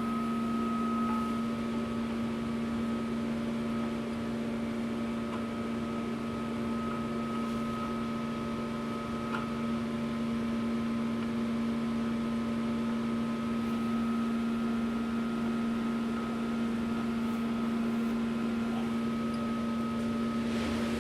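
Steady machine hum with a constant low tone, and a few faint light ticks.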